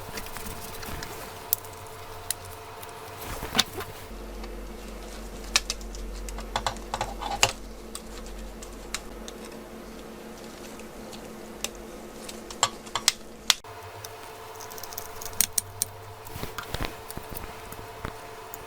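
Irregular small clicks and taps of plastic laptop parts, screws and tools being handled and fitted during reassembly of an HP Presario CQ57, over a steady faint hum. A deeper hum joins from about four seconds in and cuts off suddenly a little past halfway.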